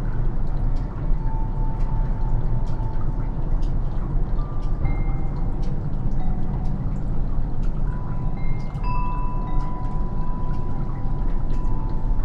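Wind chimes ringing in scattered clear tones, more often in the second half, with short drip clicks of melting snow, all over a steady low rumble.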